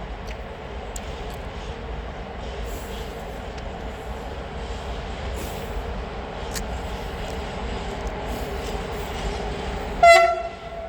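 Freight train of an HŽ series 1 141 electric locomotive and Eas open wagons running with a steady rumble and scattered faint clicks. Near the end the locomotive gives one short horn blast, the loudest sound.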